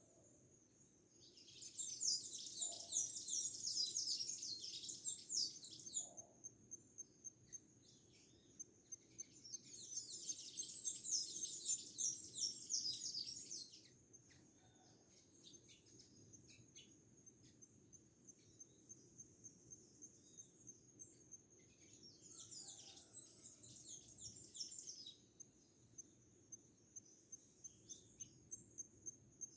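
Songbird singing three long bouts of rapid, high-pitched twittering, each several seconds long. Between the bouts, a steady high-pitched insect chirp pulses a couple of times a second.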